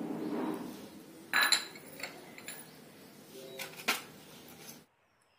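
Steel spoon clinking against a stainless steel bowl of tamarind water as cut carrots are tipped in: a soft swish at first, then ringing metal clinks about a second and a half in and again near four seconds. The sound cuts off abruptly shortly before the end.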